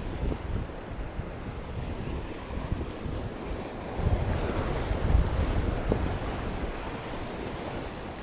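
Wind buffeting the microphone in gusts over the wash of sea water, with stronger gusts about four and five seconds in.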